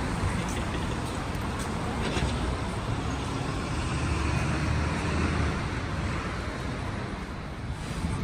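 City street traffic: motor vehicles passing with a steady low rumble, swelling louder about four to five seconds in as a heavier vehicle goes by.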